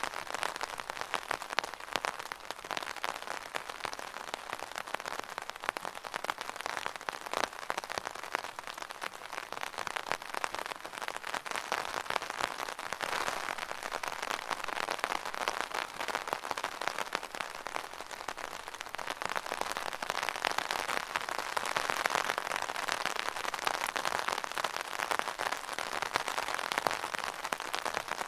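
Rain pattering on an umbrella canopy: a dense, steady stream of small drop taps that swells and eases gently.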